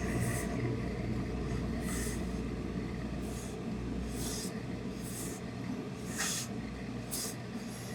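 Steady low hum with about seven brief rustling, snipping sounds spread through it: the coat's fabric being handled and cut on the work table. The loudest comes a little past six seconds in.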